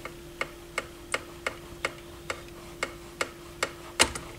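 Even mechanical ticking, about two to three ticks a second, over a faint steady hum, with one louder click about four seconds in.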